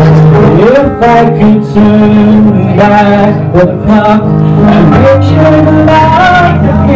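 A man singing into a microphone with long held notes that glide between pitches, over steady instrumental accompaniment.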